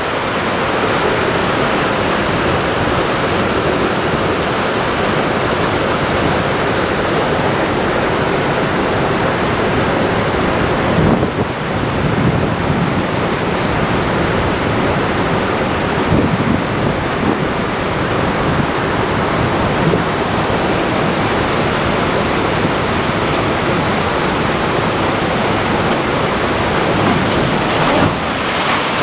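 Steady loud rush of river water pouring through a dam's spillway during an ice release.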